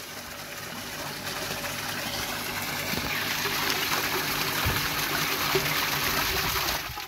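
Submersible water pump running submerged in a barrel, its discharge gushing up and splashing back into the water. The splashing grows slowly louder and cuts off suddenly near the end.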